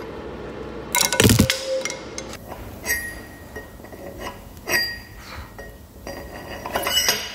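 Steel on steel: a machined steel ring being worked into the bore of a heavy steel bracket, clinking and knocking. A heavy knock comes about a second in, then several lighter metallic clinks, some ringing briefly.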